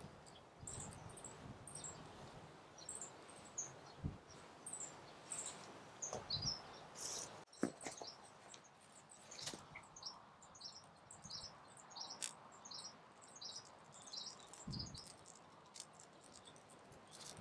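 Small birds chirping over and over, many quick high chirps, with a few soft knocks and one sharp click a little before the middle.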